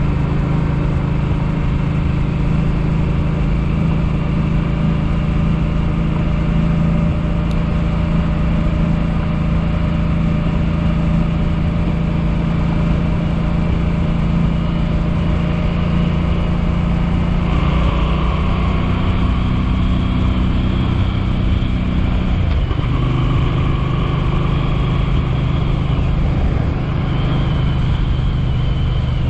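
An engine running steadily at a constant speed, with small shifts in its pitch about 17 seconds in and again about 22 seconds in.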